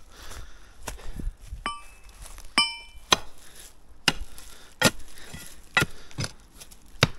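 Hand hammer striking stone in irregular blows, about one a second. Two of the first blows ring with a clear metallic clink, and the later blows are sharp, loud knocks.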